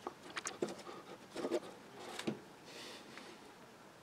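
One-handed quick bar clamp being set and squeezed onto a freshly glued wooden handle: a few light clicks and knocks of plastic and wood, then a short soft rasp about three seconds in.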